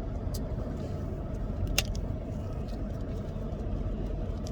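Steady low rumble from running machinery, with a few light clicks; the sharpest click comes a little under two seconds in.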